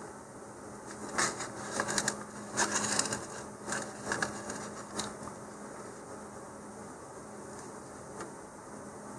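Handling noise from marking a cardboard rocket body tube: a cluster of light clicks and scrapes from a steel ruler and pencil during the first half, then only a faint steady hum.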